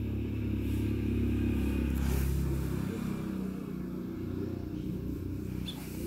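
A low, steady motor hum whose pitch shifts slightly about two to three seconds in.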